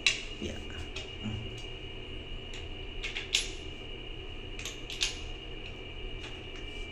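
Sharp clicks and knocks of hard plastic parts being handled and fitted: a toilet's drain pipe and mounting bracket set on a tiled floor. The loudest are right at the start and twice more around three and five seconds in, over a steady faint high-pitched tone.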